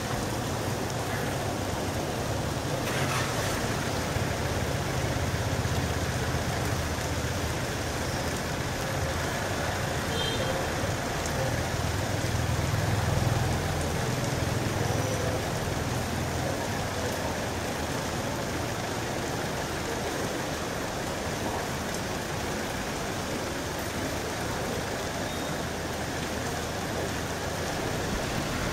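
Steady rain falling on a street, under a low rumble of vehicle engines that swells about halfway through as traffic passes.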